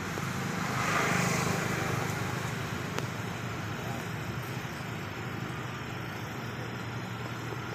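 Steady low hum of motor traffic, with a vehicle passing about a second in.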